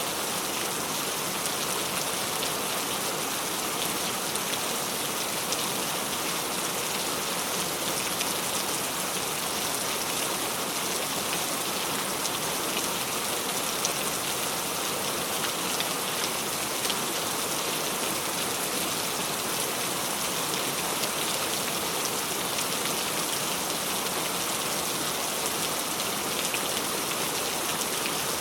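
Steady rainfall, many drops pattering on a surface in a dense, even hiss with fine individual drop ticks.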